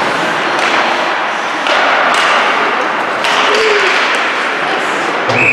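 Ice hockey play: sticks, puck and skates on the ice with sharp knocks and thuds, twice standing out clearly, over a steady din of rink noise.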